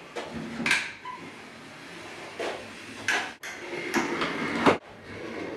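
Hand caulking gun being worked along door trim: a few short clicks and scrapes from the trigger and plunger rod as the caulk is squeezed out.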